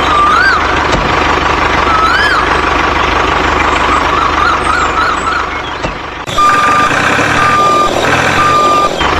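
A heavy vehicle's engine running with high, wavering whistle-like glides over it, then an abrupt change about six seconds in to a truck's reversing alarm beeping three times over the engine.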